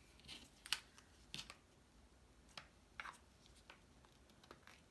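Cardstock pieces being handled on a work surface: scattered light clicks, taps and soft paper rustles, the sharpest click a little under a second in.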